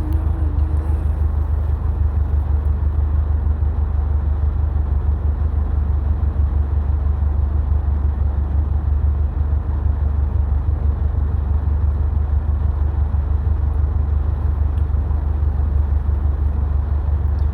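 Subaru WRX STI being driven, giving a steady low drone of engine and road noise that holds without any change in pitch or loudness.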